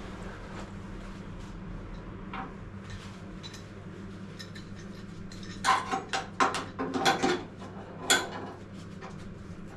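Steel sill panel being handled and set in position: a quick run of sharp metallic knocks and rattles with a short ring, about six to eight seconds in, over a low steady hum.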